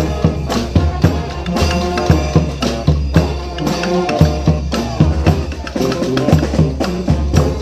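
Brass street band playing an upbeat pop tune: horns carrying the melody over a steady drum beat.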